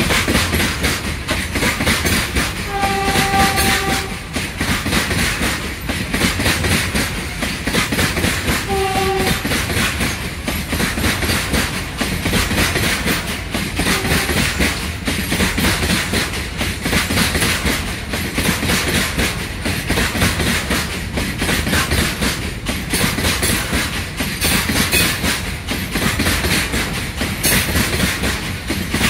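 Wheels of a freight train's BTFLN tank wagons clattering over rail joints in a steady clickety-clack as the train climbs a gradient. A short horn sounds about three seconds in, and again more briefly about nine seconds in.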